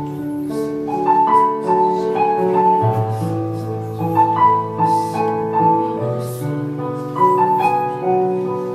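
Electronic keyboard played in a piano voice: a slow melody over held chords and bass notes, with the bass changing every few seconds.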